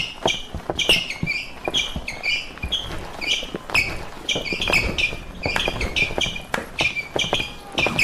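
A crickets sound effect: short, high chirps, two or three a second, with sharp clicks among them. It is the usual edit gag for a dead, silent room.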